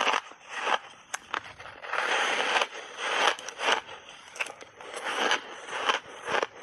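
Purple refrozen ice chunks being bitten and chewed, picked up close to the mouth: an irregular run of crisp crunches, about one to two a second, with sharp crackling snaps between them.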